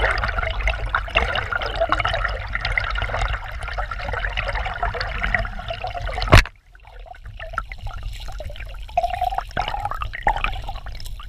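Creek water rushing and gurgling over a gravel streambed, heard muffled through a submerged camera, with a steady low rumble. There is one sharp click a little past halfway, after which the water sound is quieter.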